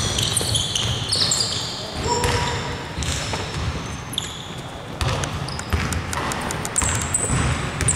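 Basketball being dribbled on a hardwood court, bouncing repeatedly, with many short high squeaks from sneakers as players run and cut.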